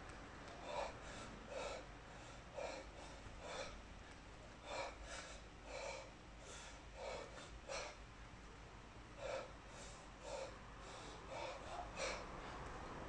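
A person breathing hard and forcefully during kettlebell snatches: short, sharp breaths about once a second, keeping time with the repetitions.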